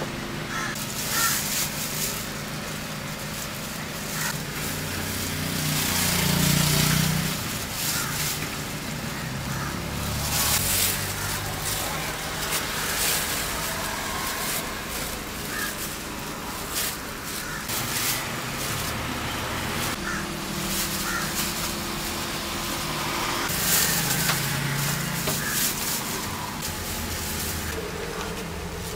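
Plastic bags rustling and crinkling as they are handled, over steady road traffic; vehicles swell past twice, about a quarter of the way in and again near the end.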